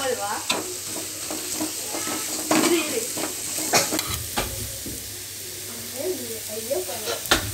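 Onion-tomato masala frying and sizzling in a metal pan while a slotted spatula stirs it, with repeated short scrapes of the spatula against the pan.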